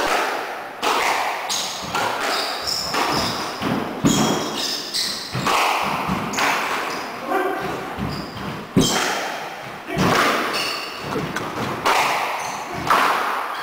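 Squash rally: the rubber ball is struck by the rackets and hits the court walls again and again, every half second to a second, each impact echoing in the enclosed court. Between the shots, shoes squeak briefly on the wooden floor.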